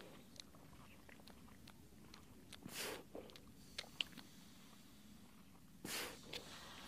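Faint close-up breathing of Weddell seals nuzzling: two short, breathy snorts, about three seconds in and again near the end, with soft wet clicks and snuffles between.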